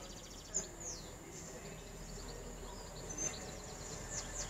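Small birds chirping in short, high calls a few times, over a faint, low, steady background rumble.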